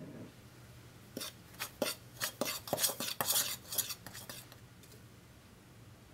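Metal spoon clinking and scraping against a stainless steel beaker while a ground grain sample is mixed: a quick, uneven run of clinks from about a second in until about four and a half seconds.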